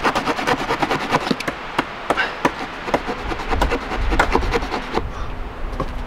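Wood being worked by hand: a rapid, irregular run of small cracks, clicks and knocks of stick against wood, over a low wind rumble.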